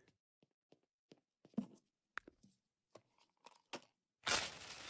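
Near silence with a few faint, scattered clicks, then a soft hiss lasting about a second near the end.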